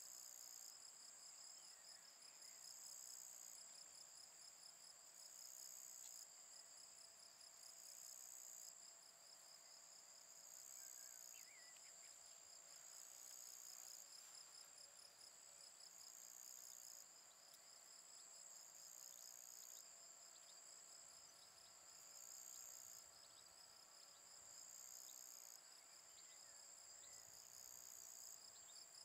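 Faint chorus of chirping insects: a fast, steady trill with a higher call that starts and stops about every two seconds.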